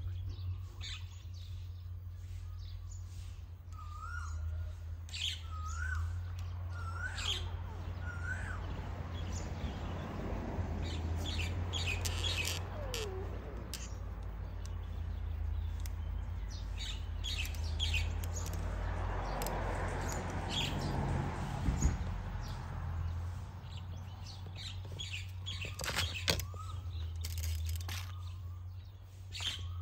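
A small bird calls with short upward-hooked chirps, repeated about once a second for a few seconds and again near the end, over a steady low hum. There are a few sharp clicks late on.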